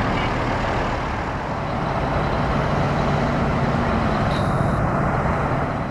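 Heavy truck engine idling steadily, with road traffic noise around it.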